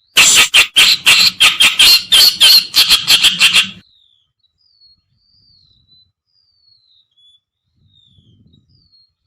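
Kerakbasi (reed warbler) song: a loud, harsh chattering run of rapid notes, about four or five a second, lasting nearly four seconds and then stopping abruptly. Faint thin, downward-sliding whistles carry on after it.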